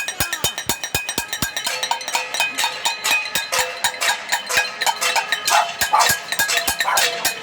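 A din of many metal objects being struck and bells ringing at once, in dense irregular clanks with a ringing metallic tone: a crowd making noise in protest.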